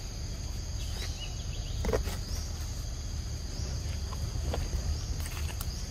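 Forest insect chorus, a steady high-pitched trill, over a low rumble, with a few short clicks and rustles, the clearest about two seconds in.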